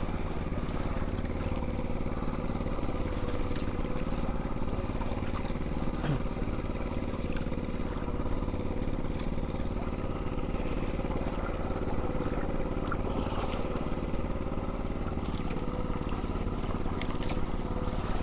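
Small fishing boat's engine running steadily at an even speed.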